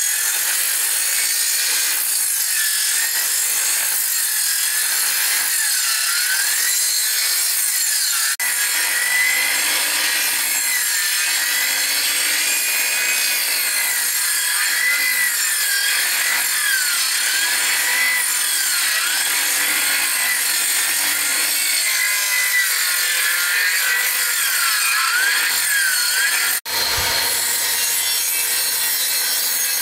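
Wood being sawn, a steady scraping cut that carries on throughout and breaks off for an instant twice.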